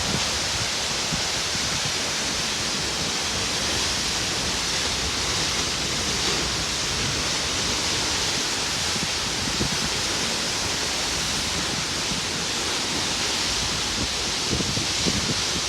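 Waterfall: a steady, unbroken rush of falling water, strongest in the hiss range.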